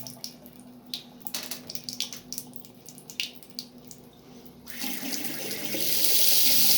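Vidima mixer tap turned on nearly five seconds in, water running through its aerator with a steady rush that builds over about a second. Before it, a few light clicks.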